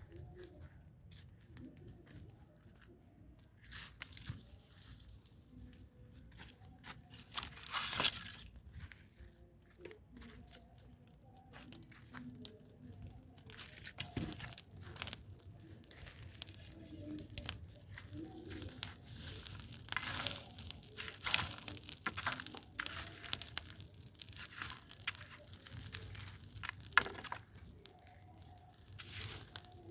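Dry material crackling, crunching and crinkling in irregular bursts, getting busier in the second half.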